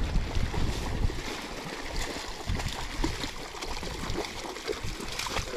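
Water sloshing and small irregular splashes as a dog swims through shallow marsh water, with a low wind rumble on the microphone early on.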